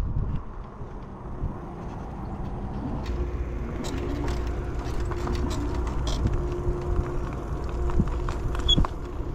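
A vehicle running with a steady low rumble and hum, with scattered light clicks and taps over it.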